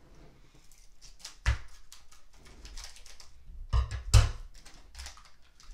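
Foil baseball-card pack wrapper rustling as it is handled and opened with scissors. There are sharp knocks on the wooden table, the loudest a pair about four seconds in as the scissors are set down.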